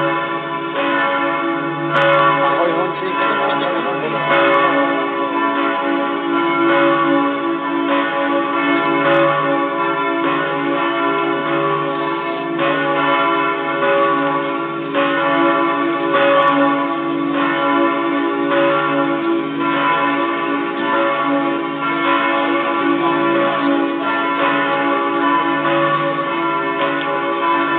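Cathedral bells ringing a full peal: several bells sound together, struck over and over without a break.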